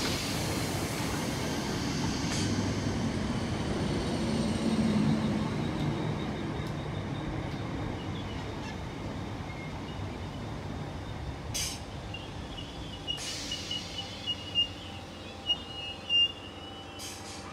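Six-car ScotRail electric multiple unit pulling out, its rumble swelling about five seconds in and then fading as it draws away. Towards the end, a string of short, high-pitched squeals of steel wheels on the rails.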